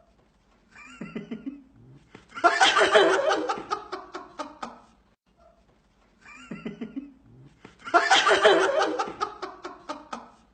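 Loud human laughter. A short pulsing call is followed by a long, loud laughing burst that falls in pitch, and the whole sequence is heard twice.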